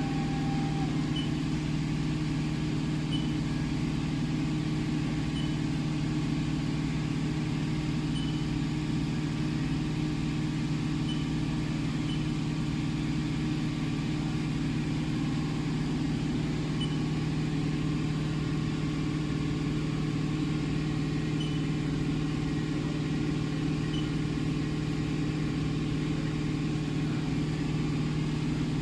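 Steady low hum of a powered-up Haas UMC-750 five-axis CNC machining center, with faint short high blips every few seconds.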